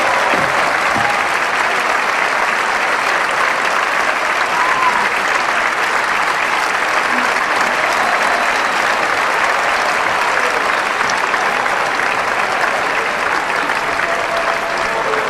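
A large theatre audience applauding steadily for the cast's curtain-call bows.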